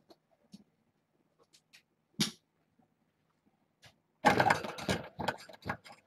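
A single sharp click about two seconds in, then close rustling and knocking for a couple of seconds near the end as someone moves and handles things right next to the microphone.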